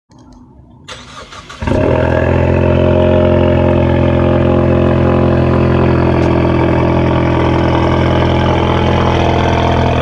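Ford Mustang EcoBoost's 2.3-litre turbocharged four-cylinder being cranked briefly and starting about a second and a half in, then running at a steady idle.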